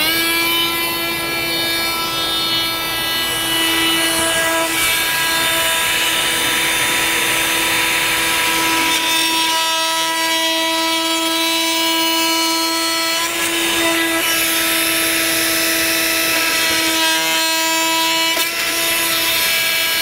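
Festool Vecturo OSC 18 cordless oscillating multi-tool running at a steady high whine as its blade plunge-cuts into red oak, with its Bluetooth-linked dust extractor drawing air through the hose. The tool spins up at the start and shuts off just before the end.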